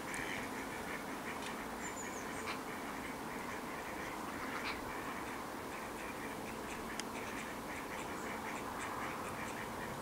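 Ducks quacking in a continual run of short calls over a steady background hiss.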